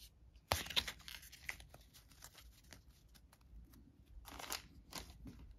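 Playing cards and a small clear plastic bag of game pieces being handled and set down on a wooden table: a sharp tap about half a second in, scattered light clicks, and short plastic crinkling a little after four seconds and again around five seconds.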